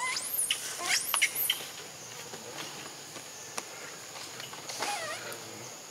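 Infant macaque crying: thin, high-pitched squeals that sweep up and down in pitch, a few in the first second and a half and another burst about five seconds in.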